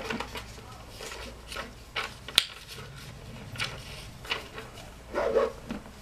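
Hand rummaging through items inside a handbag: scattered rustles and light clicks and knocks, with one sharper click about two and a half seconds in.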